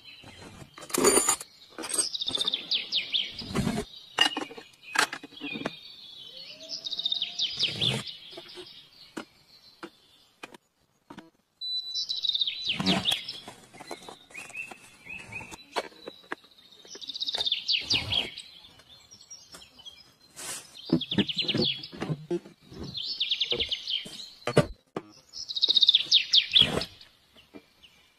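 Birds chirping: short, fast trills in bursts every few seconds, with scattered sharp clicks between them and a brief lull about ten seconds in.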